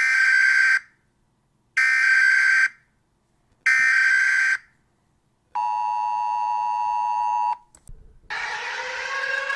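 Emergency Alert System tones: three short buzzy data bursts of the SAME header, then the two-tone EAS attention signal held for about two seconds. A click follows, and near the end a new electronic alarm tone starts, rising slowly with a pulsing pattern over it.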